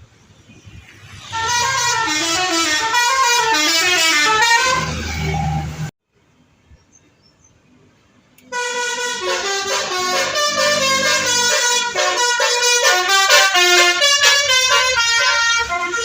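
Basuri telolet bus horn playing its multi-tone melody, the notes stepping up and down in quick succession. It cuts off abruptly about six seconds in, is silent for about two and a half seconds, then the melody starts again and plays on.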